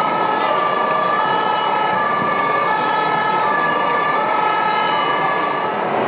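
Two-tone fire-engine siren from an RC model fire truck's sound unit, switching between a high and a low note about every half second and stopping shortly before the end.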